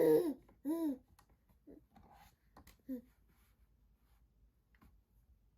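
Seven-month-old baby babbling: two loud short vocal sounds in the first second, then a few soft ones, falling quiet after about three seconds.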